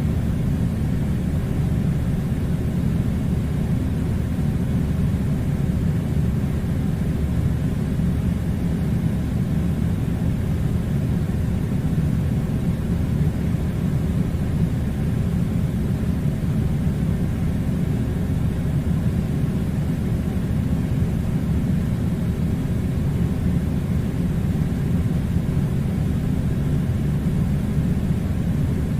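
Air conditioner running: a steady, unchanging low rush of air.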